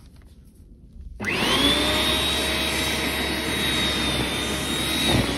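Hyundai corded electric snow thrower switched on about a second in: its motor spins up at once to a steady high whine as the auger throws snow.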